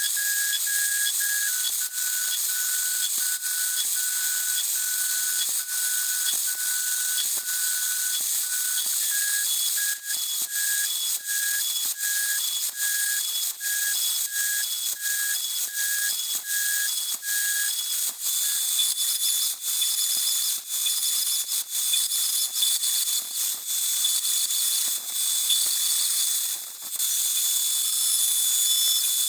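NEMA 23 stepper motors driving the mill's ballscrew axes: a high whine in short, evenly repeated pulses that changes pitch a few times, then holds a steady tone, over a constant hiss with scattered clicks.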